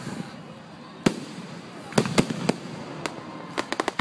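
Fireworks bursting overhead: a sharp bang about a second in, three more in quick succession around two seconds, another a little after three seconds, then a rapid run of smaller pops near the end.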